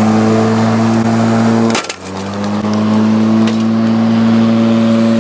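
Corded Greenworks electric lawn mower's motor running with a steady hum. About two seconds in, the spinning blade strikes an iPhone 6 with a loud, sharp crack, and the motor briefly bogs before coming back up to speed.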